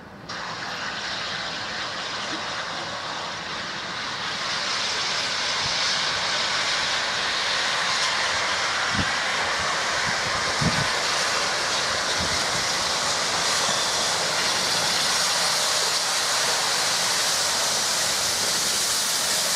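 A pair of LMS Stanier Class 5 'Black Five' 4-6-0 steam locomotives approaching under steam: a steady rushing sound of exhaust and steam that grows louder over the first few seconds as the train nears, then holds.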